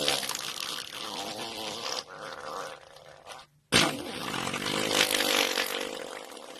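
A person farting twice. The first fart fades out about two seconds in. After a brief near-silent gap, a second long fart starts abruptly and lasts about two and a half seconds.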